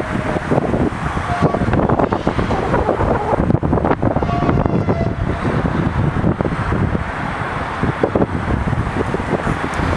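Wind buffeting the microphone: a steady low rumble with crackling throughout and a few short faint squeaks.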